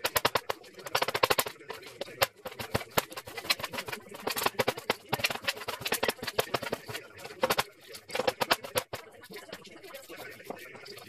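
Kitchen knife chopping vegetables in quick runs of strokes with short pauses between, cutting them into small sticks and dice on a stainless steel worktop.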